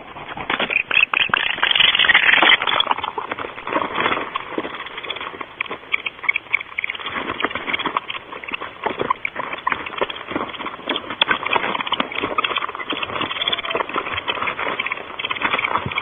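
Barn owls shuffling and scratching about on the nest-box floor litter: a dense run of scratches, clicks and crackles, loudest in the first few seconds.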